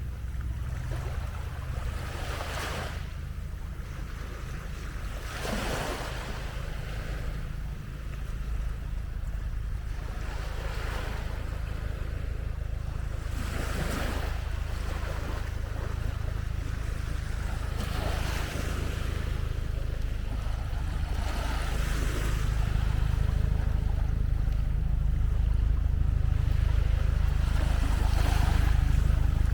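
Small waves washing onto the beach, one rush of surf every three to four seconds, over a steady low rumble of wind on the microphone.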